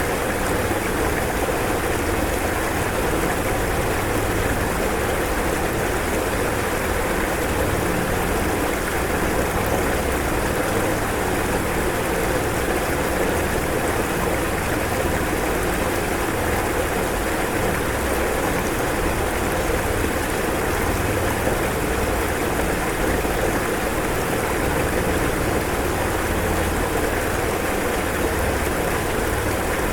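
Rushing floodwater making a steady, unbroken roar.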